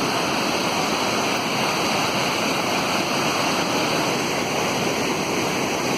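Steady rushing of a large waterfall and the river below it.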